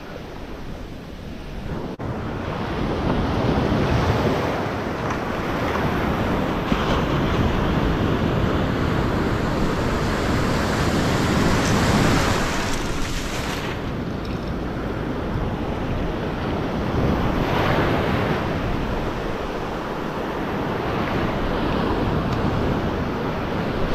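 Ocean surf breaking and washing up the beach, a continuous wash that swells and eases every few seconds.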